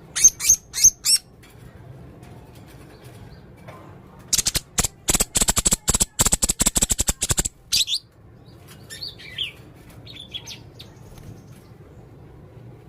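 Male blue-crowned hanging parrot calling: a few sharp, high chirps at the start, then a fast run of clicking chirps lasting about three seconds, then softer, lower chirps.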